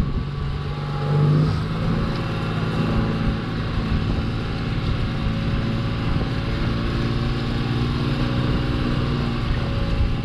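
Glass-bottom boat's engine running steadily.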